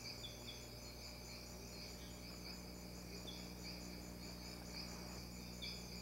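Faint rainforest insect chorus: a steady, high, finely pulsing chirring, with a few short high chirps over it.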